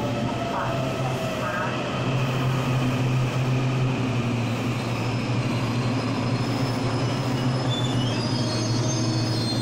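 Taiwan Railway stainless-steel electric multiple unit moving along the platform: a steady low hum, with high thin tones rising in pitch near the end.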